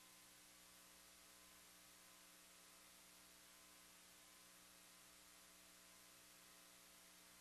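Near silence: a faint steady electrical hum under a soft hiss.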